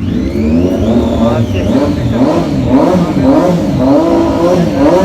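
Sportbike engine being revved in quick repeated blips, its pitch rising and falling about twice a second. The engine is loud.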